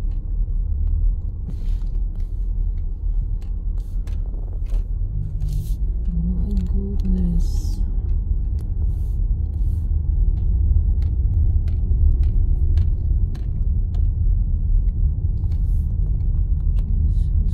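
Car cabin road noise while driving slowly: a steady low rumble from the tyres and engine, with scattered small clicks. A brief voice sound comes about six to seven seconds in.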